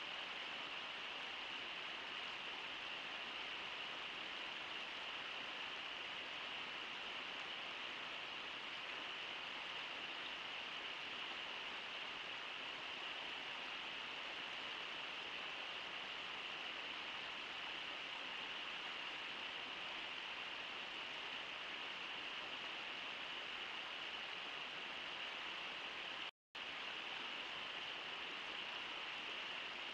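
Steady rushing of river water, an even hiss with no separate splashes or calls. The sound cuts out for a split second near the end.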